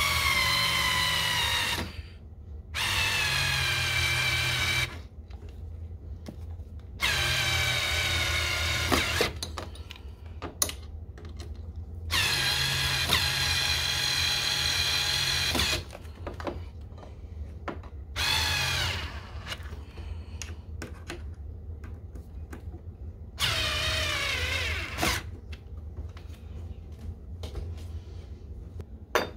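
Black+Decker 4V MAX cordless screwdriver driving screws into a door frame, in six runs of one to a few seconds with short pauses between. In several runs its whine sinks in pitch as it goes.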